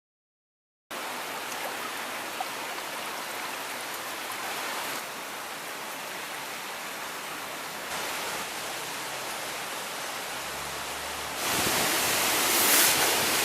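Heavy monsoon rain pouring down, a steady hiss that starts about a second in and grows louder near the end.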